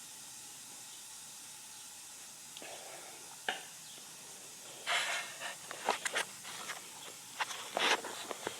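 A steady faint hiss, then, from about three seconds in, a scatter of sharp clicks and knocks with a few short rustling bursts.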